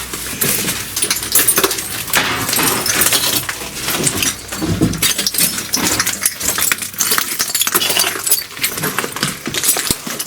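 Dense, irregular crunching and clinking, like footsteps moving over broken glass and rubble.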